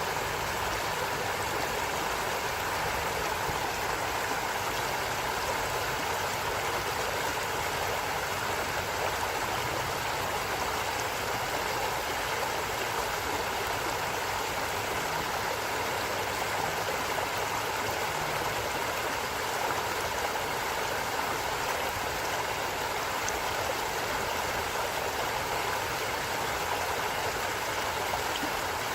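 A stream of water flowing steadily, an even rush of water with no breaks.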